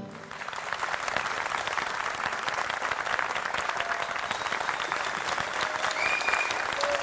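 A studio audience breaks into applause as the choir-and-orchestra song ends. It settles into steady, dense clapping.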